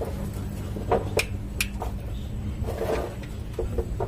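A few light metallic clicks and taps of a wrench and feeler gauge on the rocker-arm valve adjusters of a Mitsubishi 4D56 diesel, while the valve clearance is being set. A steady low hum runs underneath.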